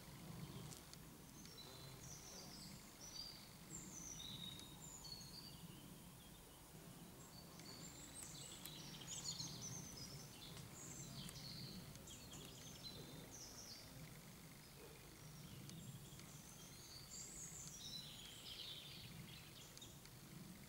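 Faint birds chirping on and off in short high calls over a low, steady background hum.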